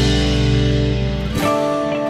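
Background music with guitar and drums. About a second and a half in, the low end drops away, leaving a lighter guitar texture.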